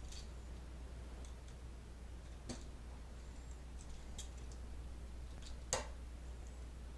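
A few sharp small clicks and ticks from a hooked copper wire end being worked around the GFCI outlet's terminal screw, spaced irregularly, with the loudest click near the end.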